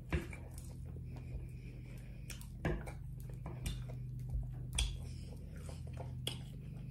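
A few scattered clicks and taps of a fork gathering cooked greens on a wooden cutting board, with faint mouth sounds of eating, over a low steady hum.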